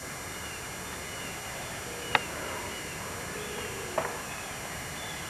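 Quiet outdoor ambience under steady tape hiss, with faint high chirps repeating throughout. Two sharp clicks stand out, about two seconds in and again about four seconds in.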